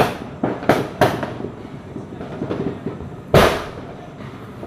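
Firecrackers going off: a quick string of sharp bangs in the first second or so, then the loudest single bang about three and a half seconds in.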